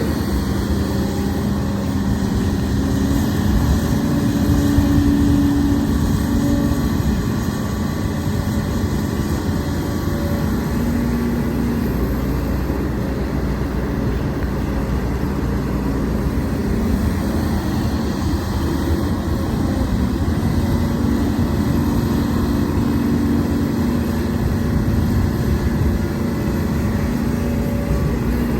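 Hidromek HMK230LC excavator's diesel engine and hydraulics working while loading a dump truck, the engine note swelling and easing every few seconds as the hydraulics take up load.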